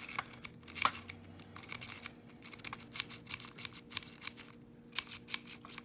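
A lock pick raking in the keyway of a Scorpio dimple padlock, metal scraping and clicking rapidly and irregularly against the pins, with a brief pause near the end.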